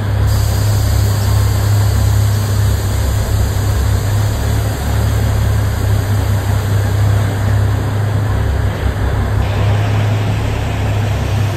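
Narrow-gauge diesel locomotive engine running with a steady low drone.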